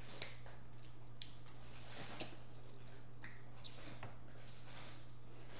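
Close-up eating sounds: king crab meat being picked from the shell by hand and chewed, with a few small sharp clicks about a second apart. A steady low hum runs underneath.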